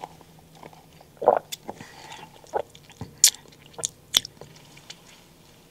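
Close-up mouth sounds of swallowing an iced drink sipped through a straw: a series of short gulps and wet clicks, one after another.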